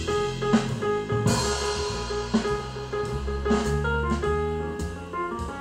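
Jazz-style music playing through Fyne Audio F500 hi-fi loudspeakers, picked up by room microphones. It is an instrumental passage with guitar and drums and no singing.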